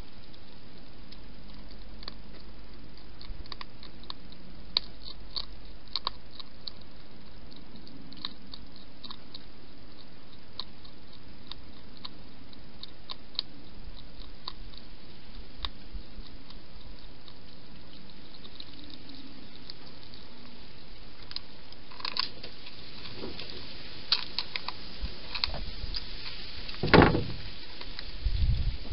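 Wild hedgehogs crunching dry food: scattered small, sharp clicks over a steady hiss. The clicks grow busier near the end, with one louder scuffling burst.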